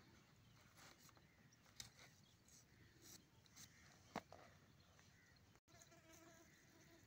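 Near silence: faint soft clicks and handling noises as raw chicken pieces are moved and rubbed on a plastic cutting board, with a faint buzzing hum near the end.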